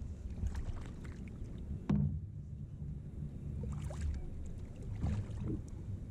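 Knocks and handling noises against a kayak hull over a steady low rumble, with one sharp knock about two seconds in, as a freshly landed blue catfish is handled in the kayak.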